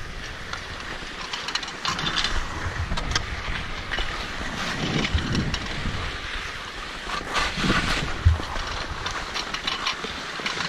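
Skis sliding and scraping over packed snow while towed uphill on a surface lift, with irregular crunches and clicks, and wind on the microphone.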